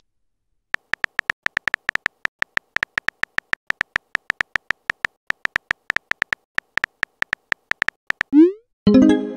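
Texting-app keyboard typing sound effect: a quick, even run of short electronic clicks, about six a second, as a message is typed letter by letter. Near the end the clicks stop, and a short rising blip and a longer pitched tone follow as the message is sent.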